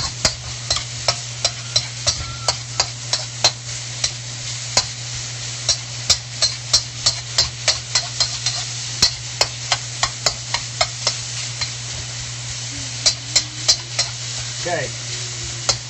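Spatula stirring diced chicken in a steel wok: repeated sharp clacks and scrapes of the spatula against the wok, a few a second and unevenly spaced, over the steady sizzle of the chicken frying.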